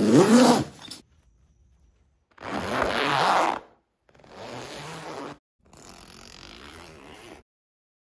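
Zippers on a fabric bag and a puffer jacket being zipped in four separate strokes. The first is short and loud, the second longer and loud, and the last two are quieter and slower, each lasting a second or more.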